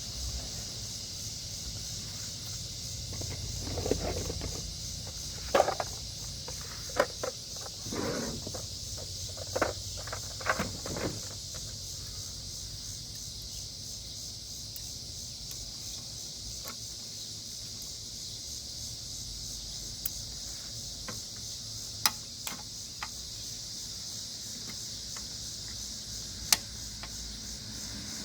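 Scattered clicks, knocks and light metallic clinks of hand tools and small engine parts being handled, a cluster in the first half and a few single sharp clicks later, over a steady high hiss.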